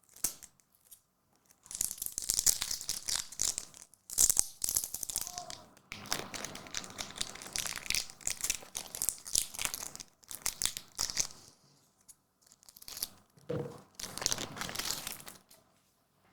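Trading-card pack wrapper being torn open and crinkled, in several spells of rustling with short pauses between.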